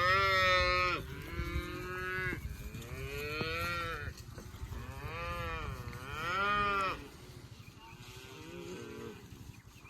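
Cows mooing one after another: about six long, drawn-out moos in the first seven seconds, the loudest at the start and just before the end of that run, then a fainter one near the end.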